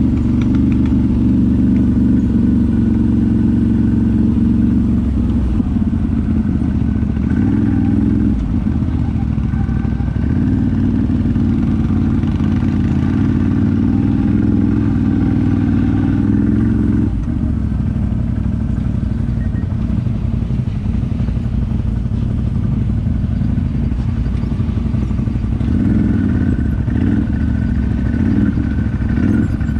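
Off-road vehicle engine running loudly and steadily while under way, its note changing a few times: about 5 and 10 seconds in, dropping a little around 17 seconds, then rising again near the end.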